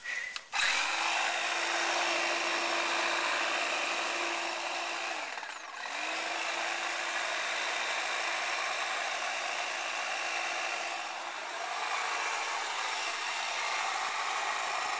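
Electric hedge trimmer running with a steady motor whine as its reciprocating blade works against the thick woody stalk of a giant weed. It starts half a second in, is released and spins down about five seconds in, then starts again at once and keeps running.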